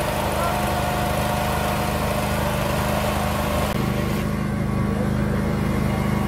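An engine running steadily with an even drone; about four seconds in the sound shifts and the high hiss fades.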